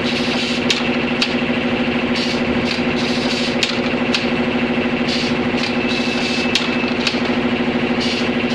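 Wire loop bending machine for seat springs running: a steady hum with repeated sharp clicks, roughly one or two a second, and short hisses between them.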